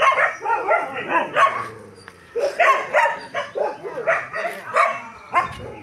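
A pack of street dogs barking together, many short barks overlapping, with a brief lull about two seconds in.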